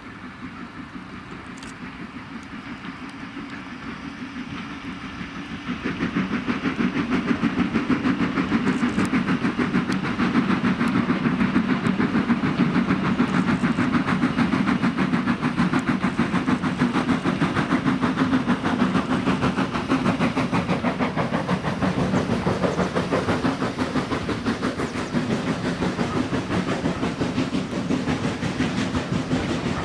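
NCB No. 49, a 1943 Robert Stephenson & Hawthorns saddle-tank steam locomotive, working hard with a train: its rapid exhaust beats grow louder as it comes close, from about five seconds in. Near the end the coaches clatter past on the rails.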